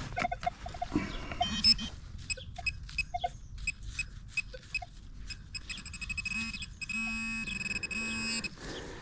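Scraping and clicking of digging in soil, then a metal detector's steady buzzing tone sounding three times in a row from about six seconds in: the signal on a buried chunk of aluminium.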